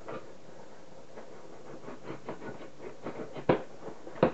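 Scissors scratching and cutting through packing tape on a cardboard box, with light scraping ticks and two sharp clicks near the end.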